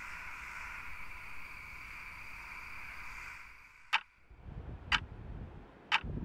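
A steady high-pitched night-time drone cuts out about three and a half seconds in. A quartz wall clock then ticks three times, once a second.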